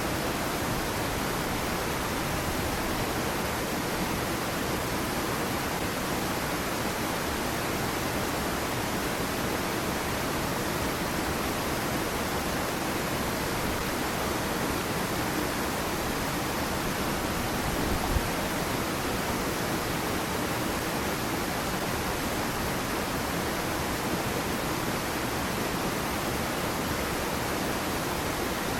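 Small waterfall splashing into a stream pool: a steady, even rush of falling water. A single brief low bump about eighteen seconds in.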